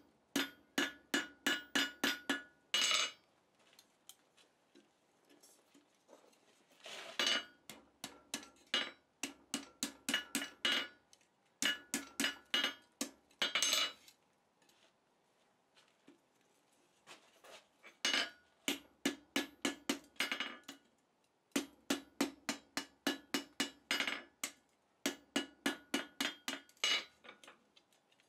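Hand hammer striking red-hot rivet-tong jaws on an anvil in six bursts of quick blows, several a second, each blow ringing the steel. The smith is forging a half-round groove into each jaw, working over a piece of round stock.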